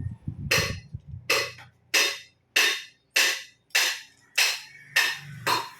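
A run of nine sharp, evenly spaced knocks, about three every two seconds, each with a short ring after it, over a faint low hum.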